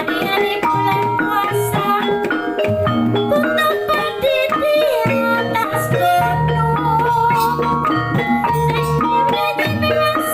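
Javanese gamelan music of the kind played for kuda lumping, with drums keeping a steady beat under a wavering melody line.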